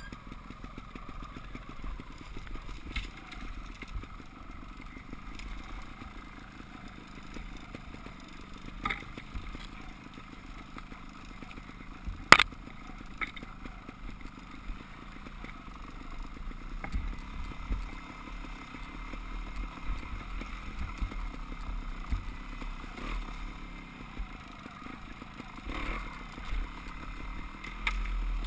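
Dirt-bike engines running on a rough forest singletrack, with knocks and rattles from the bikes jolting over roots and rocks. The loudest is a sharp knock about twelve seconds in.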